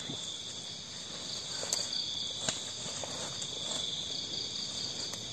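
A steady chorus of night insects: a continuous high-pitched trilling, with a couple of faint clicks about two seconds in.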